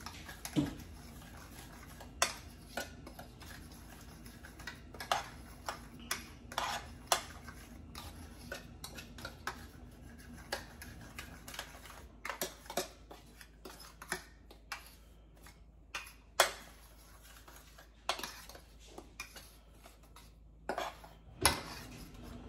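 Metal fork stirring a dry cornmeal-and-flour batter mix in a metal baking pan, scraping and clicking against the pan in irregular taps, with a few sharper knocks.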